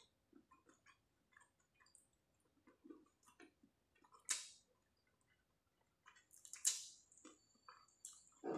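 Faint chewing of crispy fried chicken: soft crunches and wet mouth clicks, with a sharper burst about four seconds in and a louder cluster of mouth sounds near seven seconds.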